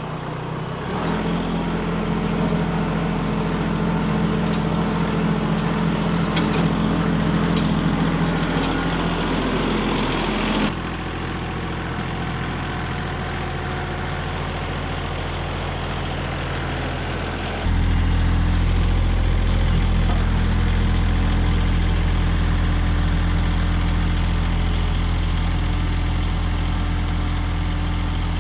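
Compact tractor's diesel engine running steadily as the machine drives with its front loader; its level and tone shift abruptly twice, about a third of the way in and past the middle.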